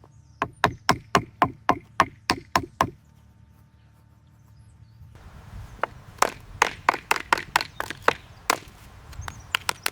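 A quick, even series of sharp knocks, about four a second, that stops about three seconds in; after a short pause a second, less regular run of knocks follows.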